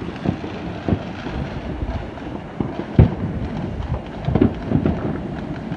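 Distant aerial fireworks booming and thudding irregularly across the city, many overlapping, with the loudest boom about halfway through.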